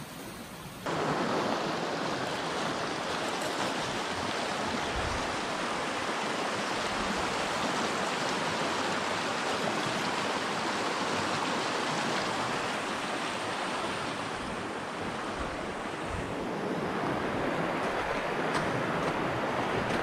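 Shallow rocky stream rushing over stones close to the microphone, a steady wash of water; it jumps louder about a second in.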